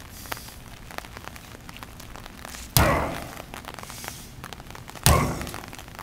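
Sledgehammer striking a large rubber tractor tire: two heavy blows a little over two seconds apart, each a sudden hit that fades within about a second.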